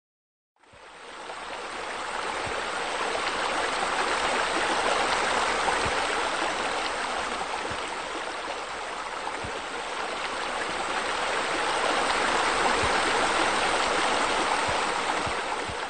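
Steady rush of running, splashing water. It fades in about half a second in and swells and eases gently in loudness.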